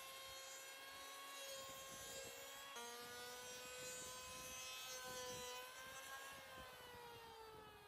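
Electric hand planer running with a steady high whine as it shaves the edge of an old wooden door, trimming it so the door opens and closes smoothly. The pitch sags near the end.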